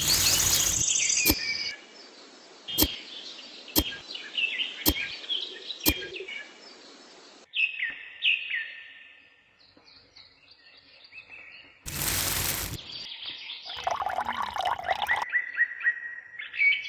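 Small birds chirping, broken by several sharp clicks in the first few seconds and a brief loud burst of noise about twelve seconds in.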